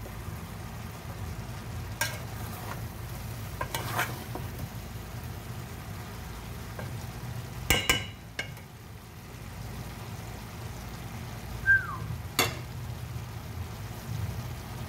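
Spoon stirring water spinach and chicken in a steaming pot, with a soft sizzle and a few sharp clinks of the spoon against the pot. A short high squeak about two-thirds through, over a steady low hum.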